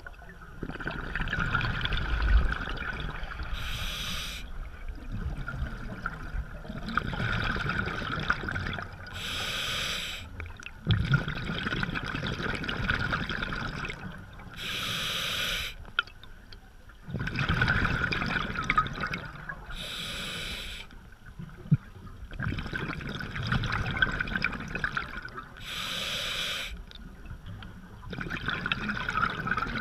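A scuba diver breathing through a regulator underwater: a short hiss of inhaled air, then a longer rush of rumbling exhaled bubbles. The cycle repeats about every five to six seconds, five breaths in all.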